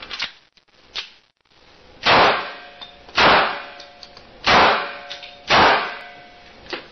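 Four gunshots fired at a bulletproof vest, spaced a little over a second apart. Each shot ends in a short metallic ringing, with a few lighter clicks between them.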